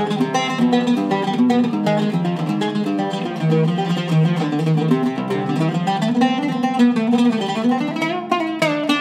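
Cedar-top Zaryab oud with an Indian rosewood (sheesham) back, played solo: a fast, continuous run of plucked melodic notes.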